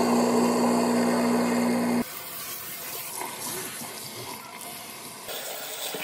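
Garbage disposal running with water, a steady hum that cuts off abruptly about two seconds in. Fainter water sounds follow, then tap water pouring into the sink drain near the end.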